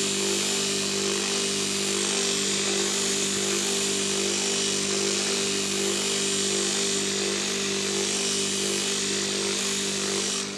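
Electric buffing wheel running steadily: a constant motor hum under a broad hiss, dying away at the very end.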